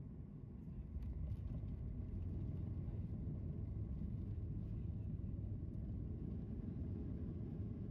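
Steady low rumble of a Boeing 737 MAX 8 airliner's cabin in flight, from engine and airflow noise. It steps up in loudness about a second in and then holds steady.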